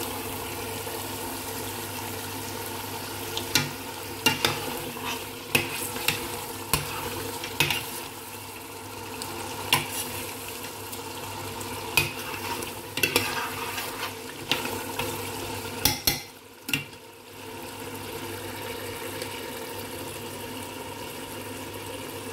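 A metal spoon stirring chicken curry in a stainless steel pot, clinking and scraping against the pot's sides about a dozen times, over the steady sizzle of the curry cooking. The clinks stop a little past halfway, leaving only the sizzle.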